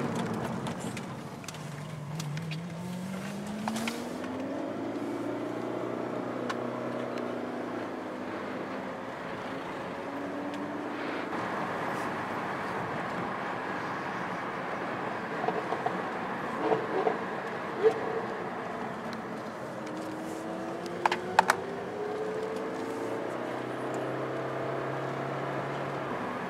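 Car engines running on the road, heard from inside the following car's cabin: an engine's pitch rises slowly as it accelerates, once about two seconds in and again near twenty seconds, over a steady engine drone. A few sharp knocks are heard in between.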